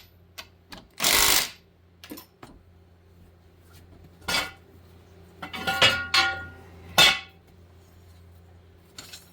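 Metal tools and parts clinking and knocking during ATV brake work: a few separate sharp, ringing clinks, the loudest cluster about six seconds in, after a short hiss about a second in.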